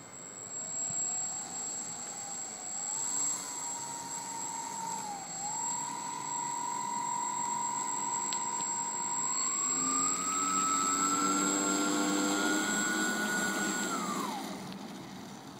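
Radio-controlled model airplane's motor and propeller whining as it taxis on the ground. The pitch climbs as the throttle opens, dips briefly about five seconds in, steps up higher about ten seconds in, then falls away as the throttle is cut near the end.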